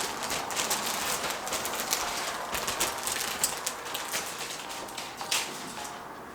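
Plastic bags crinkling and crackling as bagged plastic model-kit runners are handled and pulled out of the box, a dense, irregular rustle that fades a little toward the end.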